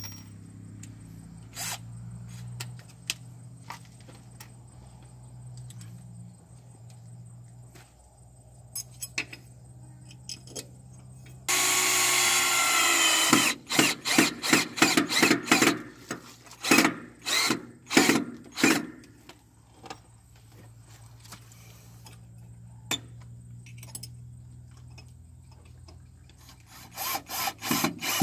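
Cordless drill drilling into a plastered wall: one continuous run of about two seconds, then a string of short trigger-pulsed bursts about two a second, and a few more short bursts near the end.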